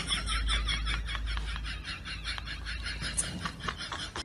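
Fast, wheezy breathing pulses, about eight a second, growing fainter and dying away near the end, over a steady low car rumble.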